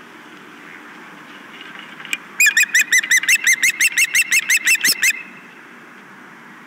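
Osprey calling at the nest: a rapid series of about sixteen loud, sharp chirps, about six a second, starting roughly two and a half seconds in and stopping abruptly before three seconds are up.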